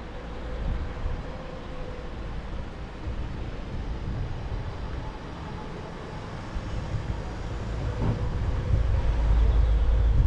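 Wind buffeting the microphone of a camera carried by a mountain biker rolling along a paved street, a low rumble that grows louder near the end.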